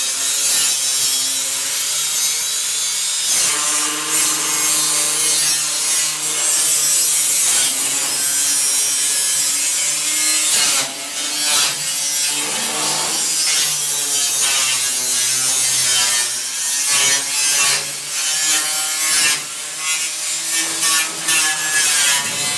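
Angle grinder with a cut-off wheel cutting through the sheet metal of a pickup box, its motor whine wavering in pitch as the wheel loads up. The cut eases off briefly about halfway through and a few times near the end.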